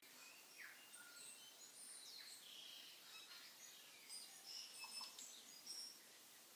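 A saucepan of rice, peas and water bubbling at a boil, heard faintly as many short, scattered pops and blips, some rising slightly in pitch.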